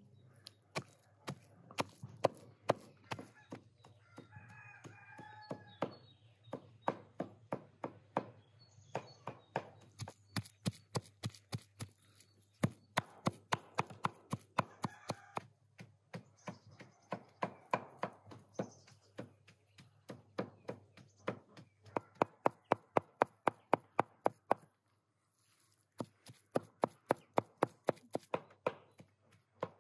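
Heavy cleaver chopping raw meat and fat into mince on a wooden stump block: rapid, steady strikes of the blade into the meat and wood, with a short pause near the end. A rooster crows and chickens cluck in the background, most clearly about four seconds in.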